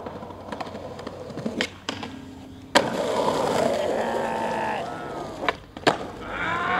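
Skateboard wheels rolling on asphalt, with sharp clacks of the board: one about three seconds in, where the rolling gets louder, and two close together near the end. Voices start up at the very end.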